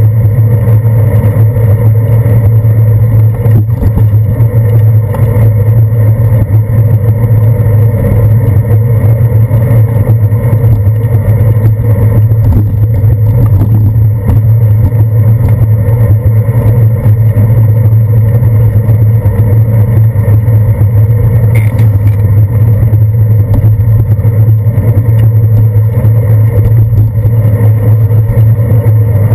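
Loud, steady low rumble of wind and road vibration picked up by a handlebar-mounted GoPro Hero 2 in its housing while a bicycle rides along a wet street. The sound stays even throughout with no change.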